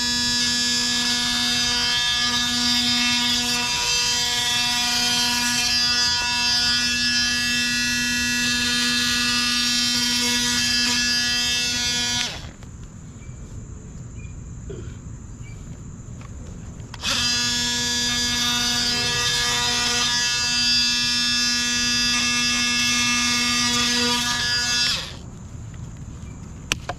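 Cordless oscillating multi-tool running with a steady buzz as its blade scores the outside of half-inch PVC conduit, in two long runs of about twelve and eight seconds with a pause of about five seconds between them.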